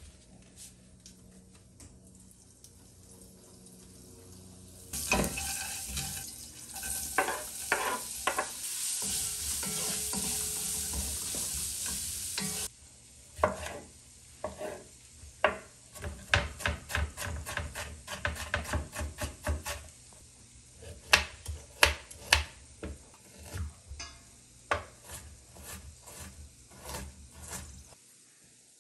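Shredded red cabbage sizzling in hot oil in a pot as it is stirred with a wooden spatula; the sizzle starts suddenly about five seconds in and cuts off abruptly about halfway through. Then a long run of short scrapes and clicks, among them a spoon scraping the peel off ginger root on a wooden board.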